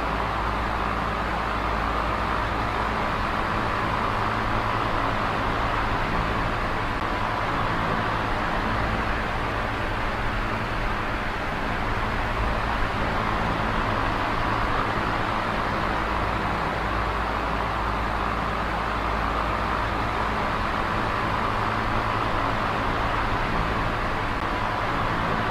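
Small oscillating electric fan running steadily: a continuous whoosh of moving air with a faint low motor hum beneath it.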